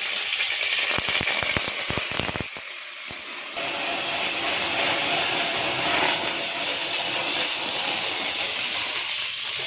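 Sparrows frying in hot oil in a pan: a steady sizzle, with a quick run of clicks and knocks from stirring about a second in.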